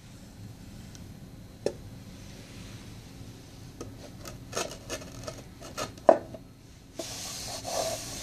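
Wooden sanding table knocking and clicking as it is set down over pegs on a wooden base: one knock about one and a half seconds in, a run of sharp knocks from about four to six seconds with the loudest just past six, then a scraping rub of wood on wood near the end.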